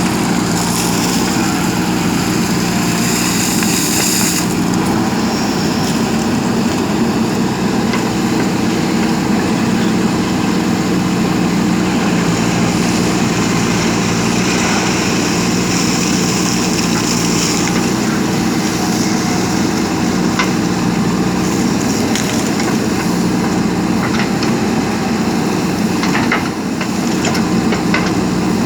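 JCB backhoe loader's diesel engine running steadily while digging, with a few sharp knocks in the last third.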